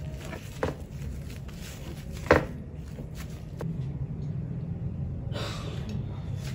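Hands patting and handling a rolled gimbab on a plastic cutting board: a few light taps, with one sharper knock about two seconds in. Near the end a short rushing hiss as sesame oil is poured from a squeeze bottle over the roll, over a steady low hum.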